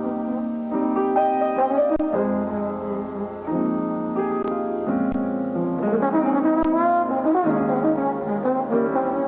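Jazz trombone and piano duet playing a slow ballad: the trombone carries the melody in long held notes over piano chords.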